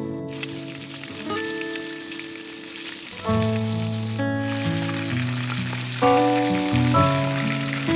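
Flour-coated chicken drumsticks sizzling steadily in hot oil in a frying pan, with background music playing over it.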